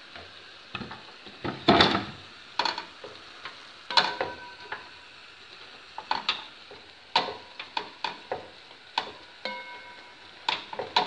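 A spatula stirring cima di rapa greens and onions in a sizzling non-stick pan. It knocks and scrapes against the pan about a dozen times at uneven intervals, some knocks leaving a brief ringing tone, over a steady sizzle.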